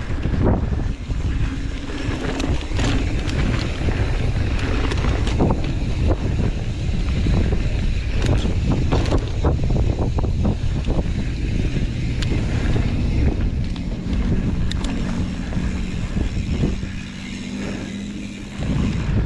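Wind rushing over the camera microphone and mountain bike tyres rolling on a dry dirt singletrack, with frequent clicks and rattles from the bike over bumps.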